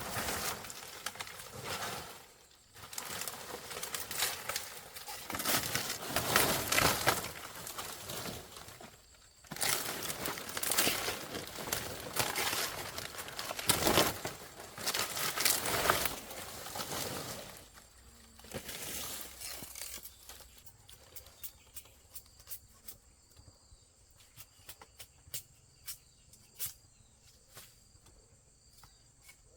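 Irregular rustling and crinkling for about the first eighteen seconds, loud in patches. It then drops away to crickets trilling steadily, with scattered sharp clicks.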